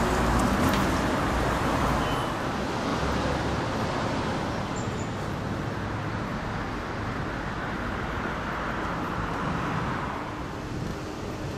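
City road traffic noise: cars passing and a steady hum and hiss, louder for the first couple of seconds.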